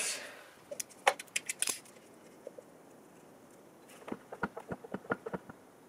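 Small, sharp clicks and taps, a cluster about a second in and another run near the end, as the drain plug is taken out of the air compressor's crankcase and the old oil is caught in a paper cup.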